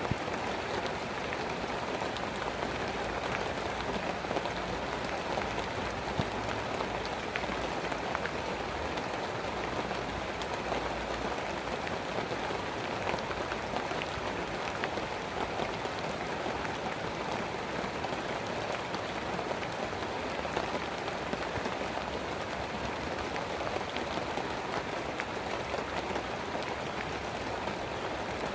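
Steady rainfall: a dense, even patter of many small drops.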